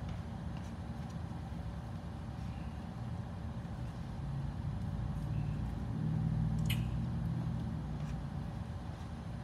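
Steady low mechanical hum and rumble that grows louder for a few seconds in the middle, with one sharp click about seven seconds in.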